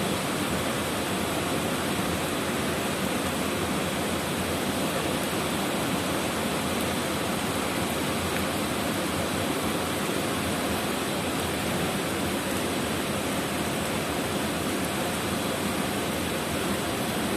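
Steady rush of a waterfall, about 40 metres high, pouring into its pool.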